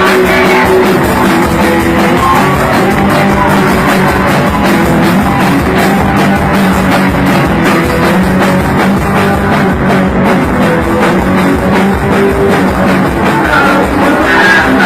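Punk rock band playing loud and fast: distorted electric guitar, bass and drum kit with a steady driving beat, and a singer's voice coming in at times.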